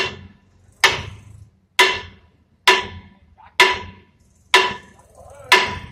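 Hammer blows on steel at a truck's rear wheel hub, seven even strikes about one a second, each with a short metallic ring.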